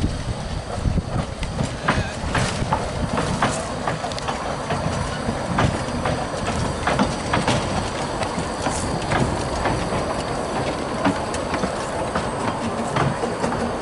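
Narrow-gauge steam train, the quarry tank locomotive Dolbadarn with its carriages, rolling slowly past: a low rumble with wheels clicking irregularly over the rail joints.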